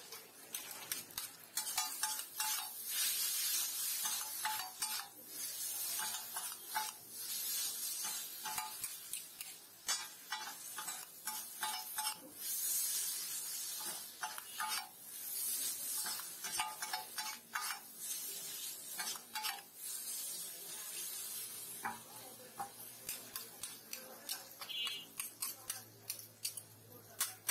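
Two metal spatulas scraping and clacking on a hot flat iron griddle as noodles are tossed and stir-fried, with the food sizzling. A fast, irregular run of scrapes and clinks that eases off into fewer, sharper taps near the end.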